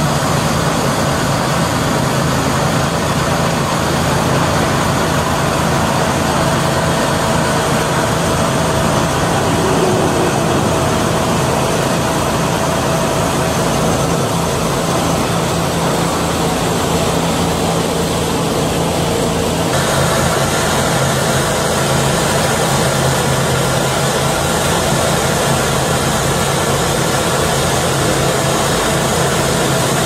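Steady engine noise from a Terex Bid-Well bridge-deck concrete paver running as it finishes the deck, with a constant low hum. The sound changes abruptly about twenty seconds in.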